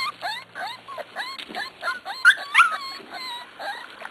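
Several six-week-old Corgi puppies whimpering and yipping together: short high cries, mostly falling in pitch, overlapping several times a second.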